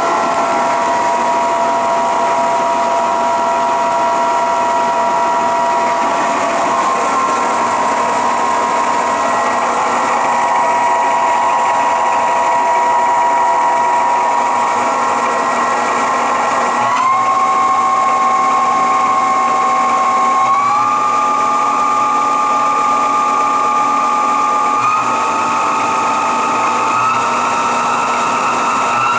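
Spindle of a 1997 Bridgeport Powerpath 15 CNC lathe running, the chuck and workpiece spinning without cutting: a steady high-pitched whine, which steps up in pitch about five times in the last twelve seconds.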